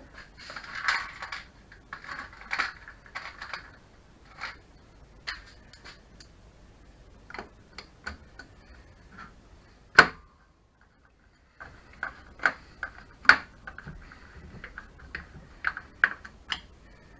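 Hand screwdriver and screws clicking and scraping against a Tacx Flux trainer's frame as its lower leg is screwed on: a scatter of small irregular clicks, one sharp click about ten seconds in, then a second of silence.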